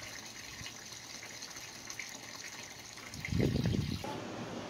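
A garden fountain's stream of water pouring into a galvanized tub of water makes a steady splashing. About three seconds in there is a brief, louder low rumble, and shortly after, the water sound cuts off.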